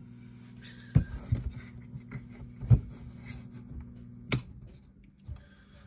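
A steady low mains-frequency hum from a low-frequency power inverter being switched off and back on, broken by a series of clicks and knocks from its switch and handling. The two sharpest clicks come a little before 3 s and about 4 s in, and the hum fades out a little after 5 s.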